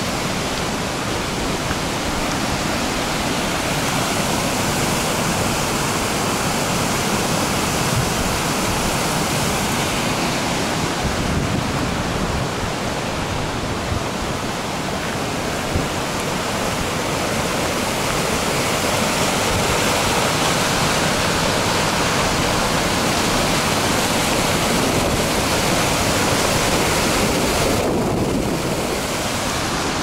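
Steady rush of a fast mountain river tumbling over rocks and small cascades: an even, unbroken noise of white water.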